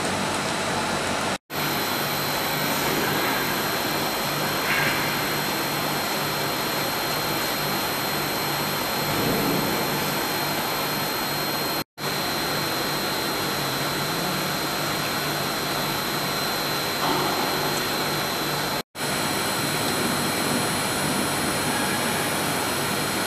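Twin-screw extruder running: a steady machine noise with a faint high whine, broken off for an instant three times.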